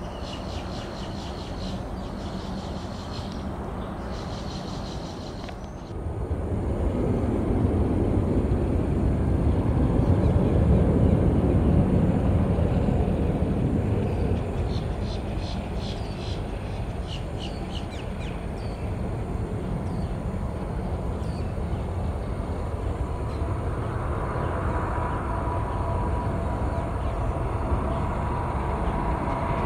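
Jet airliner passing, its deep engine noise swelling from about six seconds in, loudest around eleven seconds, then fading away. Near the end a faint steady whine builds.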